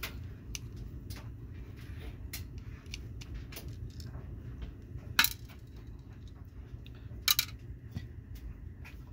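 Small metal clicks and clinks as a small screwdriver works the base screws of a diecast model truck, with two sharper clinks about five and seven seconds in.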